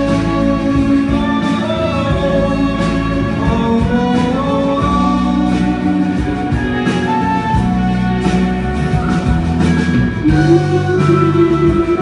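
Live band playing the instrumental stretch between sung lines of a pop-rock song: guitar melody over bass and drums.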